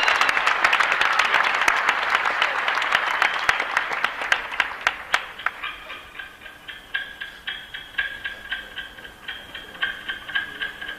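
Concert audience applauding, the clapping dying away over about five seconds. Then quiet music starts, a quick, ticking pattern of short plucked high notes.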